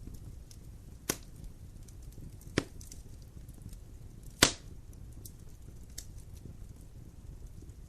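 Wood fire crackling in a fireplace: a steady low rumble of flames with faint ticks and three sharp pops, the loudest about four and a half seconds in.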